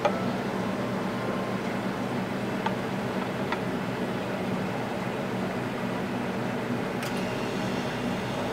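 Steady mechanical hum with a hiss over it, with a few faint clicks, the clearest one about seven seconds in.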